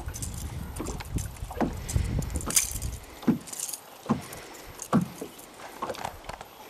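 Knocks and light rattles from a small fishing boat, about one every second, over a low rumble in the first half.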